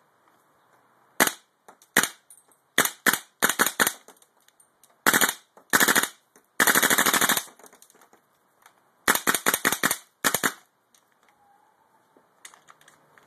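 KWA Magpul PTS LM4 gas-blowback airsoft rifle being test-fired: sharp single shots and short strings of shots, a sustained full-auto burst of just under a second near the middle, then two more quick bursts. The firing stops a couple of seconds before the end.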